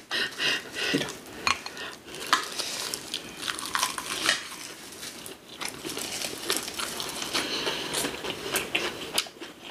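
Cutlery clinking and scraping against bowls and plates as food is eaten, a scatter of short sharp clicks.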